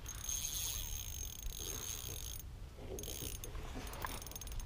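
Spinning reel being cranked to retrieve a lure, the reel's gears and bail making a fine mechanical whir that stops briefly about halfway and then starts again.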